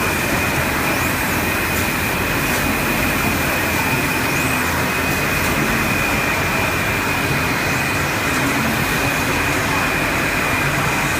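Roll-to-roll screen printing line running: a steady mechanical hum and fan noise with a constant high whine, and a faint short chirp about every three seconds.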